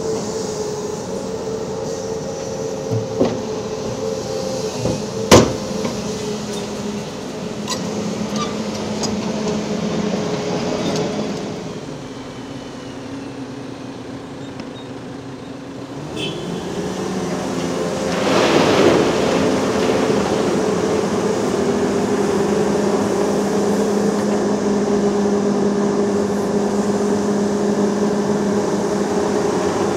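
Heavy diesel engines of a Mercedes-Benz tipper truck and a Volvo EC380E crawler excavator running steadily. There is a sharp metallic clank about five seconds in. In the second half the engine note grows louder, with a brief rush of noise near the twenty-second mark as the excavator works.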